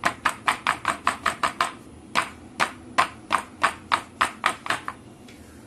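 Clear plastic modak mould filled with melted chocolate being tapped down again and again, quick sharp knocks about five or six a second in two runs with a short pause about two seconds in. The tapping settles the chocolate into the mould.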